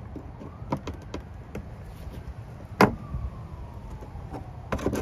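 Steel claw hammer clicking against a plastic push-pin clip as it pries the clip out of a Jeep Wrangler's plastic fender liner: a few light taps, one sharp snap around the middle, and a quick run of clicks near the end.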